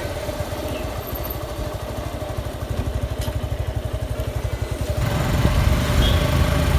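Suzuki Gixxer SF's single-cylinder engine running as the motorcycle is ridden, an even pulsing beat that grows louder about five seconds in.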